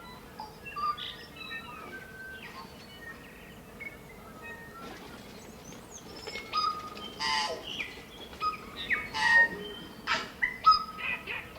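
Forest birds singing: a mix of short chirps, whistles and sliding notes from several birds, sparse at first and louder and busier over the second half.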